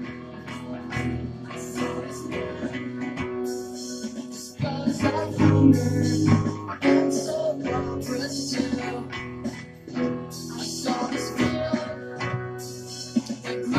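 Acoustic guitar played by hand, with picked notes and strummed chords. The playing grows louder about four and a half seconds in.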